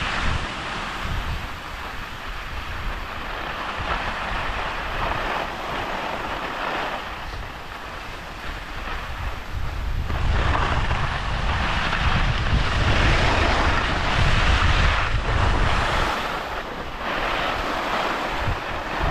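Wind rushing over an action camera's microphone while skiing downhill, with the skis hissing and scraping over packed snow. The noise grows louder about ten seconds in.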